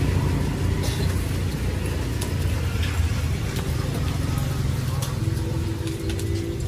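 Street traffic: motor vehicle engines running with a steady low rumble, and scattered light clicks and knocks.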